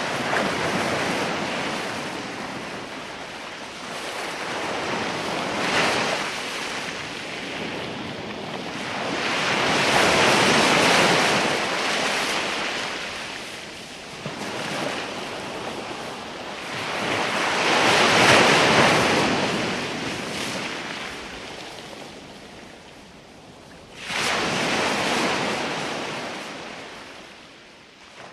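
Ocean surf: waves swelling and breaking in slow surges about eight seconds apart. A last surge starts abruptly near the end and fades out.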